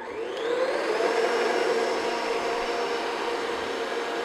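Electric stand mixer motor spinning up as it is switched on, then running steadily as it beats buttercream frosting in a metal bowl.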